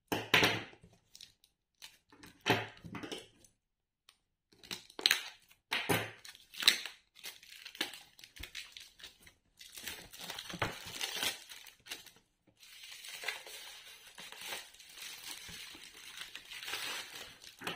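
Clear plastic shrink wrap being cut open and torn off a cardboard product box. Sharp separate bursts of crinkling and tearing in the first half give way to near-continuous crinkling as the film is peeled away.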